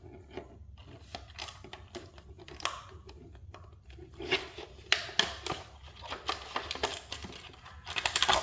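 Plastic packaging rustling and crinkling while items are handled out of a box, with irregular small clicks and knocks and a louder burst of crinkling near the end.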